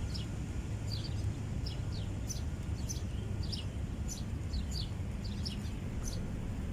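Small birds chirping, many short high chirps in quick succession, over a steady low background rumble.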